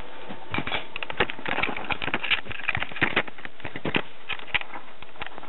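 Camera handling noise: a run of irregular clicks, knocks and rubbing from hands gripping and moving the camera close to its built-in microphone.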